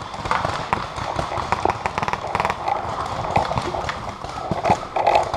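Paintball markers firing around the field: a scatter of irregular sharp pops and taps with no steady rhythm.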